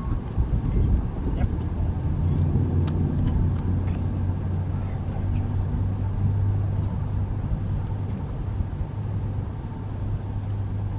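Motor vehicle engine running with a steady low hum, a little louder a couple of seconds in.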